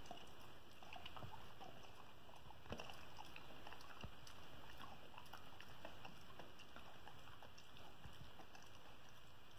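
Border collie chewing a treat: irregular faint clicks and smacks of its jaws over a steady low hiss.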